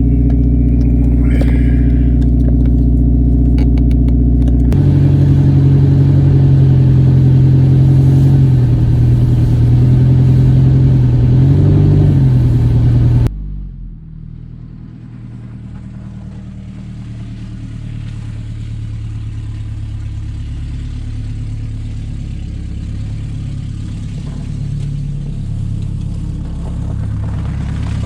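Engine of a 2010 Mazda Tribute running with its exhaust system removed, kind of loud, a steady drone that shifts pitch about five seconds in. About thirteen seconds in it cuts off abruptly to a much quieter engine running steadily and slowly growing louder.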